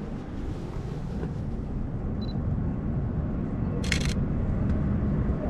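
Canon EOS Rebel SL3 DSLR: a short high autofocus-confirmation beep about two seconds in, then a single shutter click about four seconds in. Under both runs a steady low background rumble.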